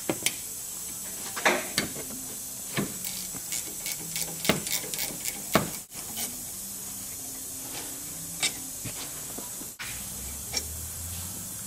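Irregular metal clicks and clinks of a 13 mm wrench working the two rear brake caliper bolts loose, over a steady hiss.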